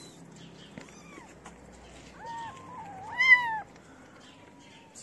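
Kittens meowing: several short, high, arching meows, the loudest and longest about three seconds in.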